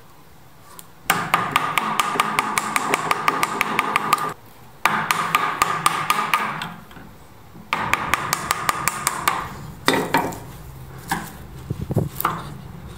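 Bench chisel paring across the grain of a half-lap joint, the wood fibres crackling as they shear, in three long strokes. Near the end come a few separate sharp knocks and clicks as the chisel meets the wood.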